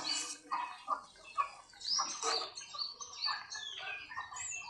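Birds chirping and calling over and over, in short chirps that rise and fall.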